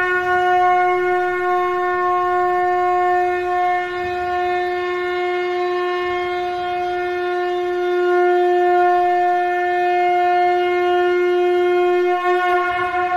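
Conch shell (shankha) blown in one long, unbroken note, held at a steady pitch with a bright, buzzy tone.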